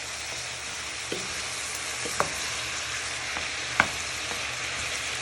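Chicken, chorizo, onion and garlic sizzling steadily in a frying pan, with a few sharp knocks of a wooden spoon against the pan as it is stirred, the loudest about two-thirds of the way through.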